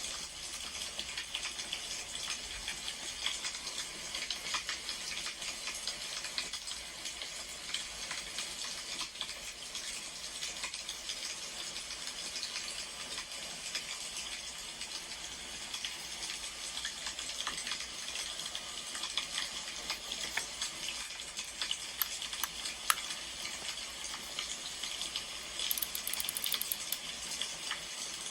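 Burning firewood crackling: a steady, dense crackle with small pops and a few sharper snaps near the end.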